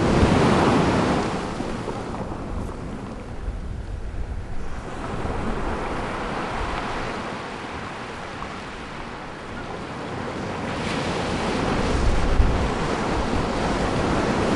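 Ocean surf and wind making a steady rushing noise that eases a couple of seconds in and builds again near the end.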